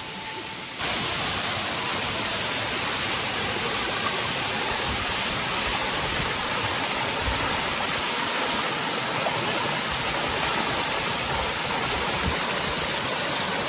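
Steady rushing roar of a waterfall's falling water, jumping louder about a second in and then holding even.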